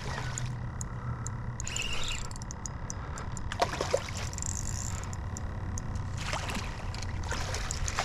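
A hooked red drum splashing at the surface beside the boat as it is played to the landing net, in several short splashy bursts, the last as the net scoops it near the end. Faint ticking runs underneath.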